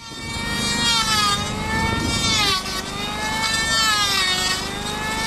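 Handheld electric power tool machining a fibre-reinforced foamed urethane (FFU) synthetic sleeper, its motor whining. The pitch dips and recovers a few times as the tool bites into the material, over a steady low hum.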